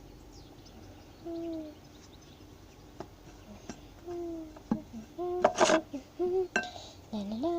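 A girl humming softly to herself in short, separate notes, then a longer wavering tune starting near the end. A few faint clicks sound in between.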